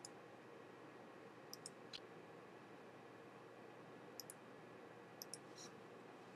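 Near silence: room tone with a few faint computer mouse clicks, several in quick pairs about a tenth of a second apart.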